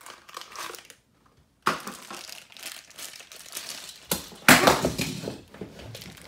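Small cardboard Tomica toy-car box and its packaging being opened by hand, rustling and crinkling irregularly. The sound breaks off briefly about a second in, and the loudest crinkling comes about four and a half seconds in.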